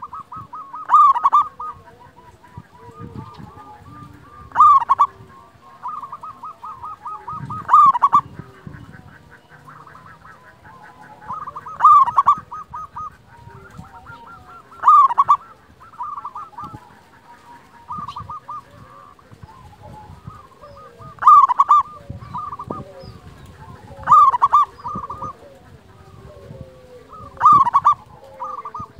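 Zebra dove (perkutut) cooing: about eight loud phrases, each a quick run of coos peaking in one loud note, roughly every three to four seconds, with softer coos in between.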